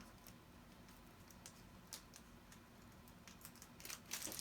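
Near silence with faint, scattered clicks of small metal applicator tips being handled. The clicks grow into a small clatter near the end as the tips are sorted.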